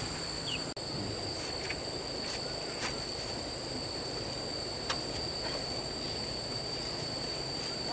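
Steady high-pitched insect drone, of the cricket kind, over a rough outdoor background noise, with a few faint clicks scattered through.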